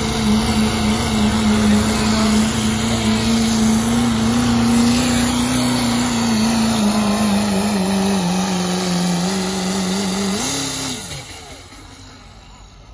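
Turbocharged diesel pickup truck engine at full throttle pulling a weight-transfer sled, a loud, steady note whose revs sag slowly. About ten and a half seconds in it revs up briefly, then the throttle is cut and the sound dies away within about a second.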